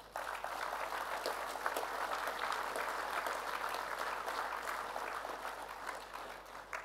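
Audience applauding, a dense patter of many hands clapping that starts at once and dies away near the end.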